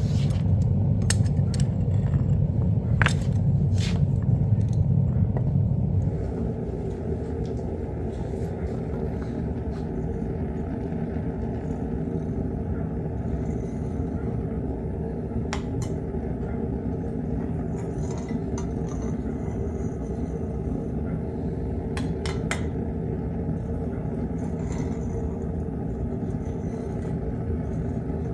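Propane-fired melting furnace burner running with a steady rumble, louder for the first several seconds, over scattered sharp metallic clinks of steel tongs and a skimming spoon against the ingot mold and crucible.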